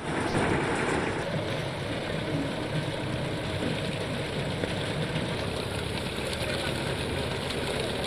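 Road roller's engine running as its steel drum rolls over rows of glass liquor bottles, with a dense crackle of glass being crushed.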